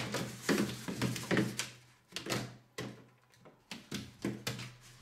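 Corrugated plastic ventilation hose being stretched and handled, its ribs crinkling and clicking in short, irregular rustles that thin out after about two seconds.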